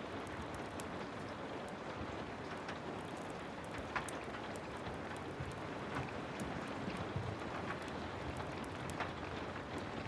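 Heavy rain falling steadily, with many scattered sharp crackles and ticks throughout.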